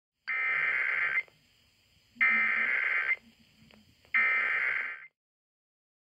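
Emergency Alert System SAME header: three bursts of digital data tones, each about a second long with about a second's pause between them. This encoded header opens an EAS alert, here a Required Weekly Test.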